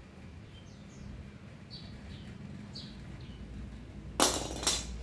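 A loud clatter of hard objects knocking together, as of metal tools handled in a box, in two clashes about half a second apart near the end. Faint short high chirps come before it.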